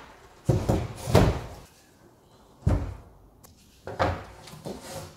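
Several heavy thumps and knocks, a second or so apart, as a stiff foam-core fibreglass bulkhead panel is handled and set down into the hull. The loudest comes about a second in.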